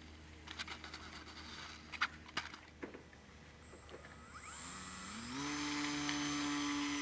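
Electric RC model plane (HobbyKing P-26 Peashooter) on a touch-and-go: a few sharp knocks and rattles as its wheels hit the runway in the first few seconds, then its electric motor and propeller spool up to full throttle as a rising whine about five seconds in, holding a steady high pitch for the takeoff run.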